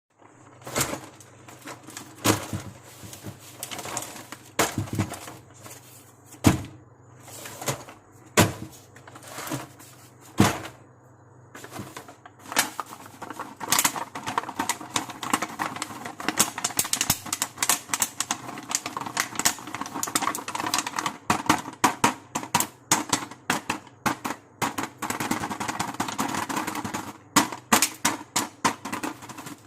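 A toy makeup kit being unpacked by hand: plastic packaging and pieces clicking and tapping. There are a few separate sharp clicks at first, then from a little under halfway in a dense run of rapid clicking and crinkling.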